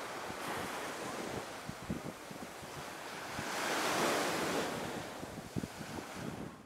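Gentle ocean surf washing up on a sandy beach, one wave swelling and breaking a little past halfway through, with wind buffeting the microphone in short gusts.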